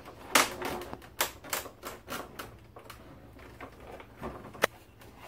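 Plastic snap clips and casing panels of a water purifier clicking and scraping as the panel is pried loose along its seam: a string of irregular clicks, with a sharp snap near the end.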